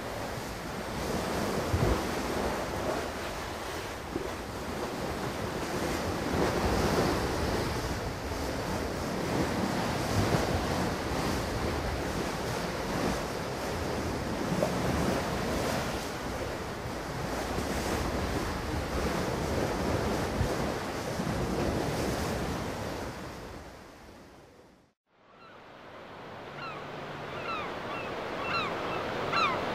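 Sea water washing and lapping, with wind buffeting the microphone: a steady rushing noise that fades out about 25 seconds in. After it, a quieter stretch with short high chirps.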